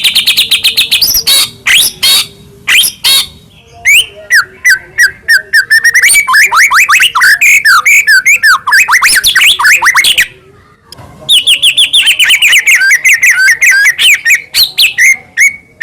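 White-rumped shama singing loudly in a rapid, varied run of whistled notes and chirps, with one short pause about ten seconds in.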